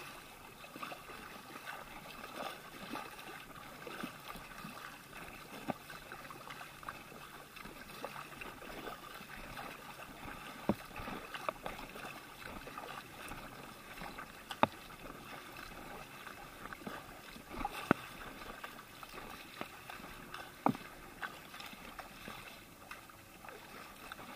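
Kayak paddling at sea: a double-bladed paddle dipping and pulling through the water beside an inflatable drop-stitch kayak, with steady swishing and splashing of water and a few sharp knocks now and then.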